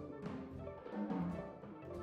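Large mixed chamber ensemble of strings, winds, brass, harp, piano and drum kit playing a contemporary classical piece live: sustained low chords with a few sharp struck accents.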